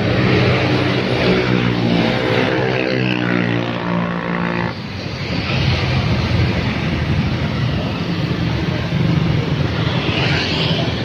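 Diesel engine of a heavy cargo truck passing close by, its note dropping in pitch as it goes past and then falling away suddenly, with motorbike engines and road traffic after it.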